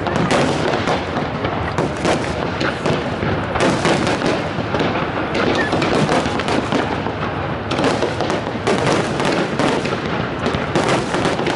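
Aerial fireworks shells bursting in a dense, unbroken barrage of overlapping bangs.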